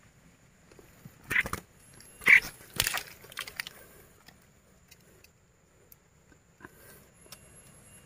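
A small songbird caught on a bird-lime stick in shallow water, flapping and splashing with a couple of short harsh squawks, the loudest about two and a half seconds in.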